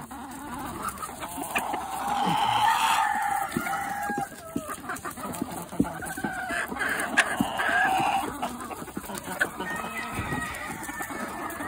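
A flock of chickens clucking and calling while crowding round, with many quick sharp clicks of beaks pecking at a hand-held apple.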